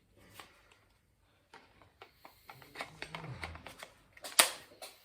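Objects being handled during renovation work: a run of small clicks and knocks, getting busier in the second half, with one louder knock about four and a half seconds in.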